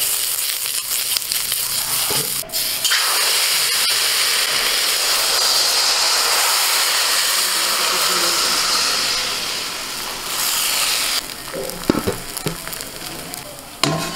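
Rice-flour batter sizzling loudly in a hot, ghee-greased kadai, starting about three seconds in after a few scraping strokes of a banana-stem brush on the pan and dying down a little before the end. Near the end, several metal clanks as a steel bowl is set over the kadai as a lid.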